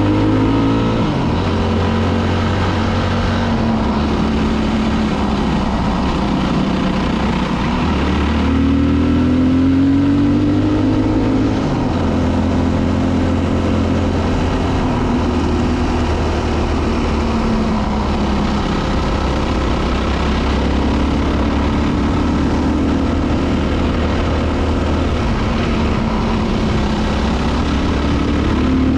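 Dirt bike engine under way, its pitch climbing and dropping several times as the rider works the throttle through the gears, over a steady rush of noise.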